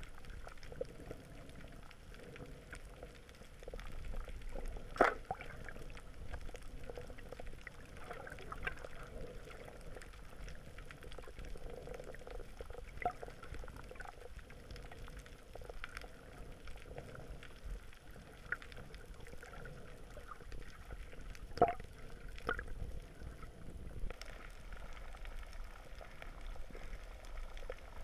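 Underwater ambience: muffled water movement and bubbling with a low rumble, scattered faint clicks, and two sharper clicks about five seconds in and again near twenty-two seconds.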